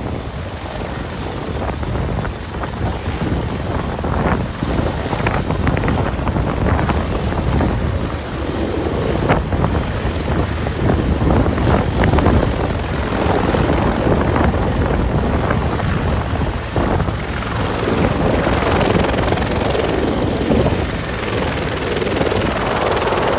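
Bell 412 twin-turbine helicopter running at close range, its four-blade main rotor beating steadily as it hovers low, touches down on its skids and keeps turning on the ground.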